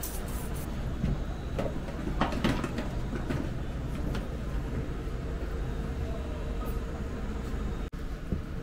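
Steady low rumble of restaurant kitchen equipment, with a faint steady hum and a few sharp clinks of metal utensils or dishes between about one and three seconds in.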